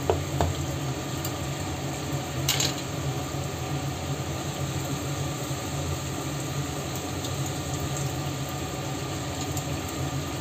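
Thin lemon-garlic sugar sauce boiling in a nonstick frying pan: a steady bubbling hiss over a steady low hum, with a brief sharp sound about two and a half seconds in.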